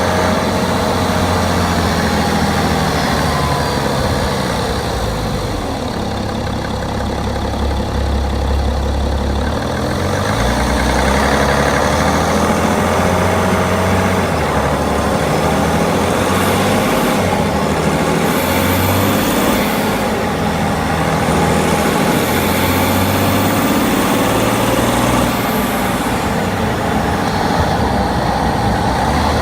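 BMW 530d F10's six-cylinder turbodiesel running steadily at idle, heard from under the bonnet, with faint high whines drifting up and down over the engine note.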